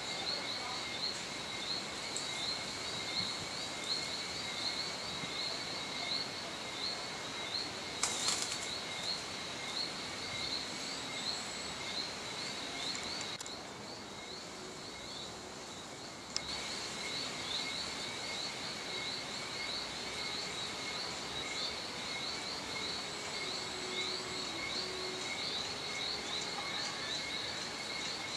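Insects chirring steadily in a high, fast-pulsing drone that fades for a few seconds midway. About eight seconds in comes a short burst of wing flapping as a hen flies up onto a tree branch.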